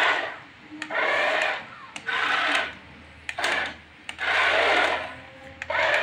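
Small electric drive motor and plastic gearbox of a toy RC dump truck whirring in short stop-start bursts, about five, each under a second long, as the truck is driven in short moves.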